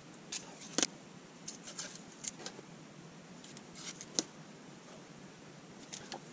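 Protective paper backing being peeled off small laser-cut plastic parts: scattered short crackles and rustles, with sharper clicks as the plastic pieces are handled, the loudest about a second in and again about four seconds in.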